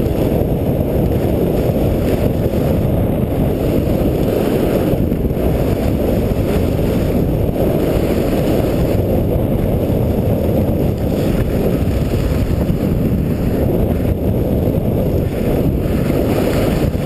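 Steady low wind rumble buffeting a camera microphone carried by a skier going downhill, with faint hiss from skis sliding on packed snow.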